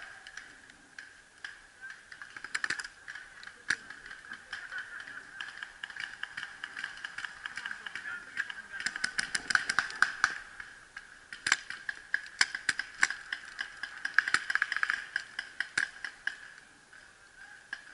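Paintball markers firing in sharp pops, some single shots and some fast strings of shots, densest about halfway through and again near the end, over a steady high-pitched tone.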